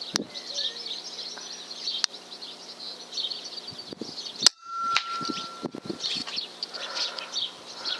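A single sharp shot from an FX Impact M3 .22 PCP air rifle firing a slug, about four and a half seconds in, over steady birdsong. A brief steady high tone follows for about a second.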